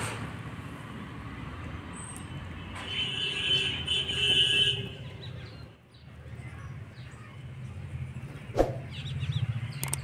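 Low, steady rumble of a motor vehicle engine running, with a higher tone sounding briefly from about three to five seconds in and a single sharp knock near the end.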